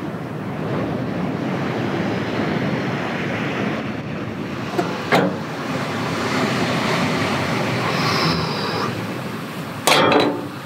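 Steady rushing noise, with a sharp click about five seconds in and a louder short knock near the end.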